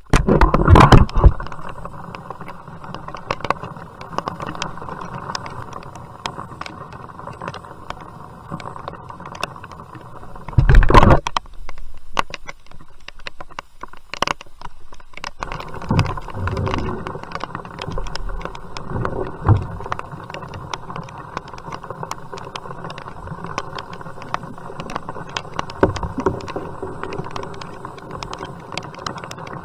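Rain pattering on a plastic bag over a head-mounted camera: many small ticks over a steady hiss. Loud rustling knocks come in the first second or so and again about eleven seconds in.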